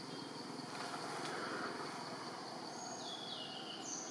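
Jungle ambience: a steady high insect drone over a wash of background noise, with a few short high-pitched chirps from about three seconds in.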